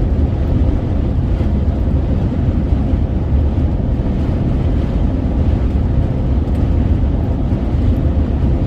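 Steady low rumble of a vehicle driving at road speed, heard from inside the cabin, with strong wind against the vehicle.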